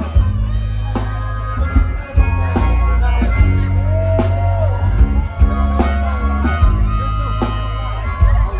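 Live band music: a harmonica plays a bending lead line over a heavy, steady bass and drums.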